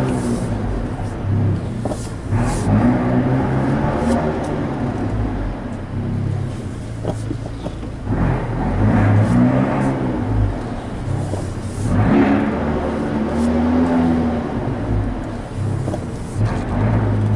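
Abarth 124 Spider's turbocharged four-cylinder engine through a Record Monza aftermarket exhaust, driven at low speed. The exhaust note swells and rises with light throttle several times, a few seconds apart, and echoes around the enclosed multi-storey car park.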